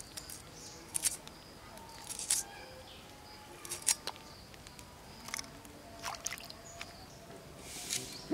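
Green chillies being sliced against the curved blade of a boti, a floor-mounted cutting blade: crisp snips, irregularly spaced, about one every second or so.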